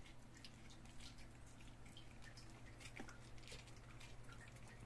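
Faint, scattered wet clicks of several puppies chewing and lapping rice from a basin, over a low steady hum.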